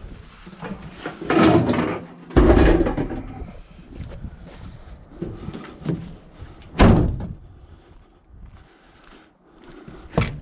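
Heavy bangs and thuds of scrap appliances being handled and loaded into a van, with door-like slams. There are several separate impacts; the loudest comes about two and a half seconds in, and a sharp one about seven seconds in.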